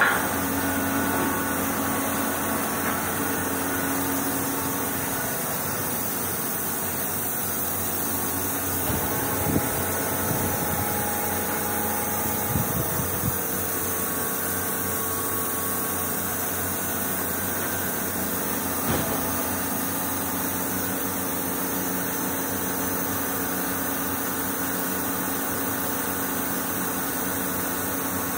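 Steady hum of a running machine tool driven by an electric motor, with a few brief knocks scattered through it.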